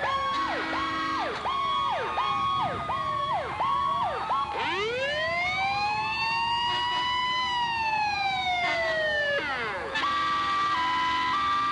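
Fire truck sirens sounding as the trucks pass: a rapid electronic yelp repeating about twice a second, then a slow wail that rises and falls over about five seconds and cuts off, then a tone alternating between two pitches near the end.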